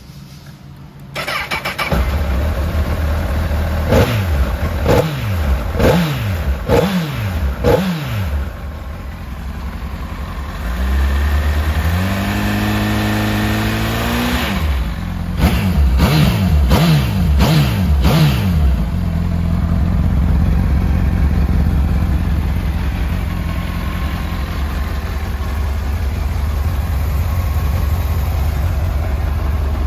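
Honda CBR1000RR (SC57) 998 cc inline-four motorcycle engine starting up about a second in, then blipped through a run of quick throttle revs, held at higher revs for a few seconds, blipped again, and settling to a steady idle for the last ten seconds.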